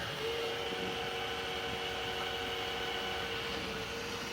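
Roomba j7+ robot vacuum running: a steady motor hum with a faint high whine over the hiss of its suction.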